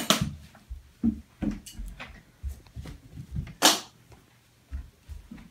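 A person moving about and walking on a hardwood floor: soft, irregular thumps and a few sharp knocks, the loudest about three and a half seconds in.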